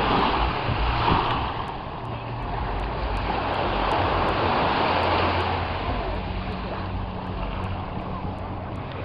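Sea water rushing and wind, swelling and easing in waves, over a faint low steady hum.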